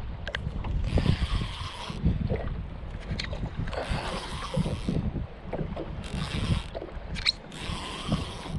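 Strong wind buffeting the microphone, with a fishing reel being cranked in several short spells of whirring as a hooked channel catfish is reeled in.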